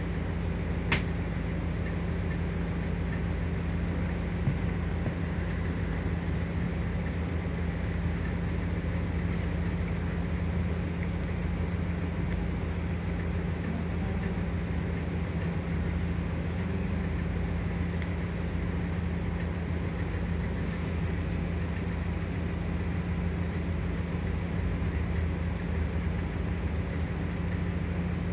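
Minibus engine idling steadily while the bus stands still, a constant low hum with a brief click about a second in.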